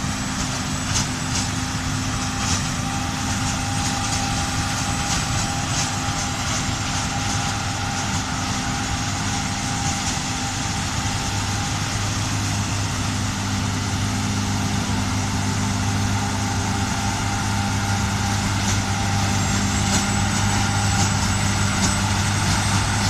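John Deere S680 combine harvester running steadily while harvesting, a constant engine and machinery drone with a faint high whine joining near the end.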